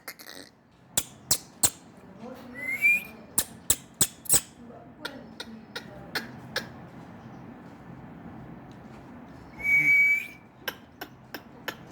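Indian ringneck parakeet whistling: a short rising whistle about three seconds in and a longer held whistle near the end, among a scatter of sharp clicks.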